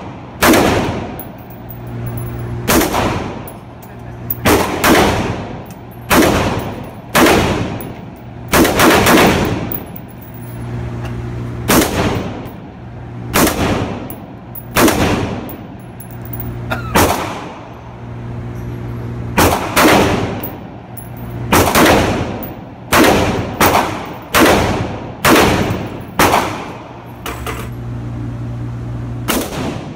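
AR-15 rifle fired shot after shot at an indoor range, roughly one shot a second with uneven gaps. Each crack is followed by a booming echo off the range walls, over a steady low hum.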